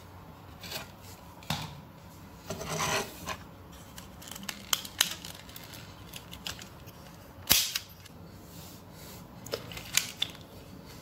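Plastic Lego Technic rubber-band gun being handled and worked by hand: scattered clicks and rattles of its parts, a short rubbing scrape about three seconds in, and one sharp snap about seven and a half seconds in, with a few more clicks near the end.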